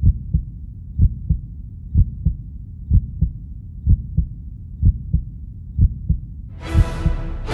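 Heartbeat sound effect in a film soundtrack: pairs of low thumps, lub-dub, about once a second. Music swells in near the end.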